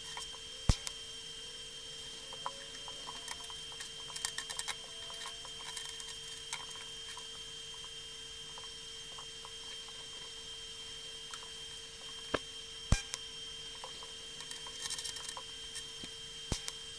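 TIG welding at a small workbench: a steady hum with a thin high whine over it from the welding setup, under the soft hiss of the arc on stainless-steel bolts and washers. Scattered clicks and small metal taps as the parts are handled, with a couple of sharper knocks about twelve seconds in.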